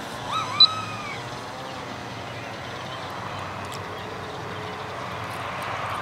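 Steady airy running of a distant twin brushless-electric RC park flyer (a profile P-38 Lightning) high overhead, swelling a little near the end. Near the start come a couple of short arching chirps and a single sharp high chirp about half a second in.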